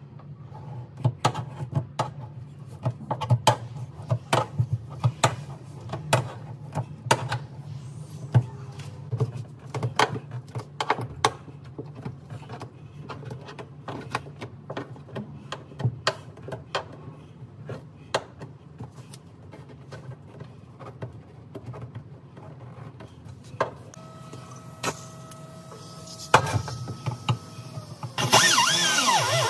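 Irregular sharp taps and knocks from hand work on a truck's floor pan, dense at first and sparser later. About a second before the end, a pneumatic cut-off tool starts up loud and shrill, cutting into the steel floor pan.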